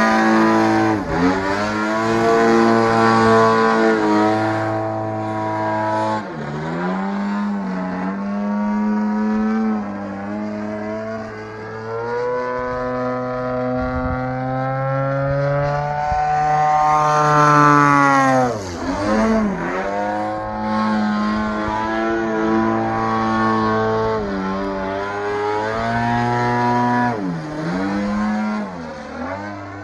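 Radio-controlled aerobatic model airplane's motor and propeller, its pitch rising and falling as the throttle changes through the manoeuvres. The pitch climbs and then falls sharply as it passes close by, about six seconds in, again around eighteen seconds, and near the end.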